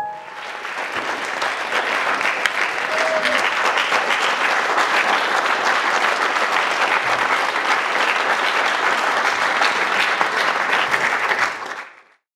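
Audience applauding, a dense patter of many hands clapping, fading out near the end.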